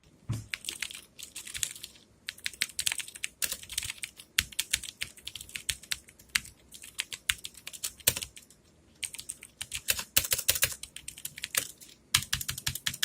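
Typing on a Surmt Next Series mechanical keyboard with Greetech blue clicky switches: quick runs of sharp key clicks, broken by a few short pauses.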